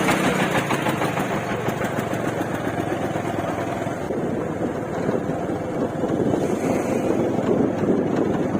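A vehicle engine running steadily, with a rushing noise over it.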